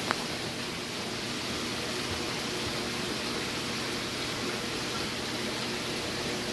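Steady rushing hiss of a saltwater aquarium's water circulation and equipment, with one short click just after the start.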